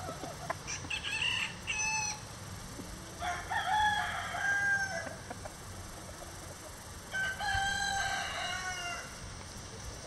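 Rhode Island Red rooster crowing: a couple of short calls, then two full crows about four seconds apart. Low wind rumble runs underneath.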